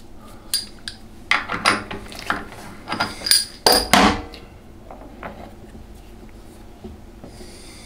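Metal engine parts being handled and set down on a workbench: a series of sharp clinks and knocks over about four seconds.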